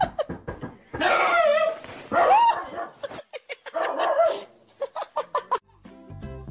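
A dog barking and yowling in three loud, drawn-out calls, with quick rattling taps before and after them. Music starts near the end.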